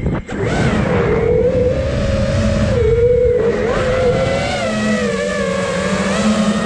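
Five-inch FPV freestyle quadcopter's brushless motors whining, the pitch wavering up and down with the throttle, over a steady rush of wind. The sound drops out briefly just after the start.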